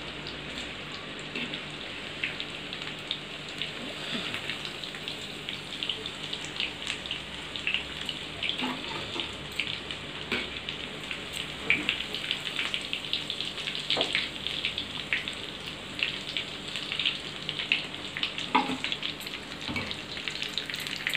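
Chicken nuggets deep-frying in a kadai of hot oil: a steady sizzle made of many small crackles and pops, with a few sharper knocks now and then.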